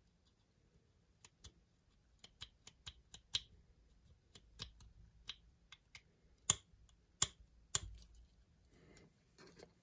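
Irregular run of light clicks and taps as a marking pen and fingers work against a metal lens-mount adapter held in the hand, with three louder clicks close together near the end. A soft rustle of handling follows.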